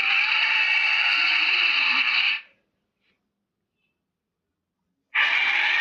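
Monster sound effect: a loud, harsh hissing roar held for about two and a half seconds that cuts off abruptly, then dead silence, then the same kind of hissing roar starts again near the end.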